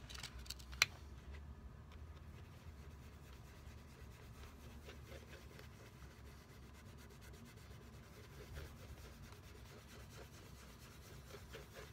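Soft, steady rubbing of a cloth working wax polish into the leather toe of a shoe, with one sharp click about a second in.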